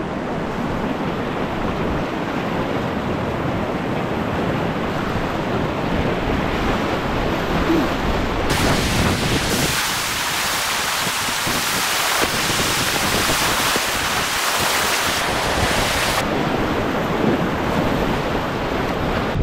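River rapids rushing loudly around a whitewater kayak, heard from the paddler's helmet. From about eight seconds in until about sixteen seconds the sound turns brighter and hissier, with water splashing close as the kayak runs through breaking waves.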